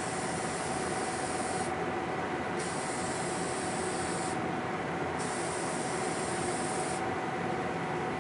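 Aerosol can of Slip Plate graphite coating spraying in three hissing bursts of about two seconds each, with short gaps between, stopping near the end, over a steady background drone.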